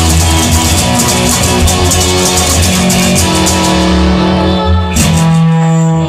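Instrumental rock music: guitar over a drum beat. About five seconds in the drums stop and a single guitar chord is held.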